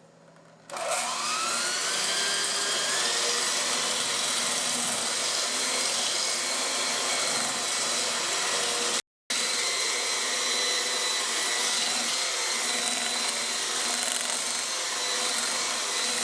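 Electric mixer spinning up with a rising whine about a second in, then running steadily as it creams butter and sugar. It drops out for a moment near the middle, then resumes and stops abruptly at the end.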